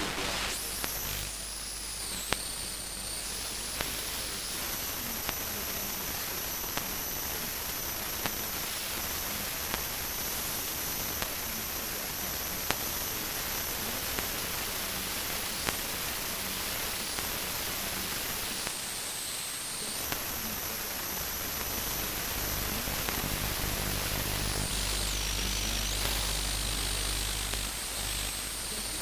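Radio static drone: a steady hiss with high whistling tones that slide and dip in pitch, scattered crackling clicks, and a low hum that swells in after about twenty seconds.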